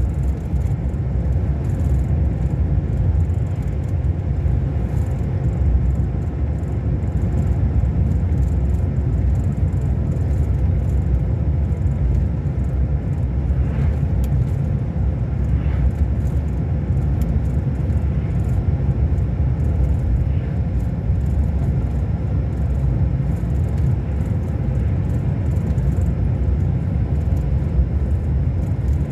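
Scania K400 Euro 5 coach engine, a 13-litre inline six, running steadily: a constant low rumble with no change in pitch.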